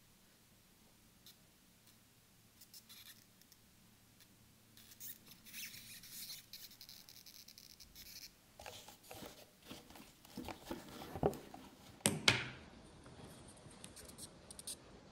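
Hands handling a wristwatch and its leather strap: faint rubbing and scattered small clicks, then a run of sharper clicks and knocks, the loudest near the end.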